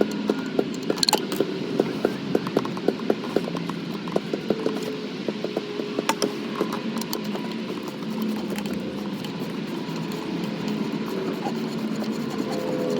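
Hand ratchet clicking in an even rhythm of about three to four clicks a second, as a bolt is worked loose, turning uneven and sparser after about three seconds, over a steady low hum.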